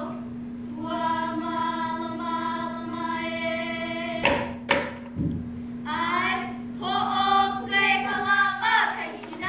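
Young boys' voices chanting a Hawaiian hula chant, holding long notes, with two sharp ipu gourd-drum strikes a little past the middle.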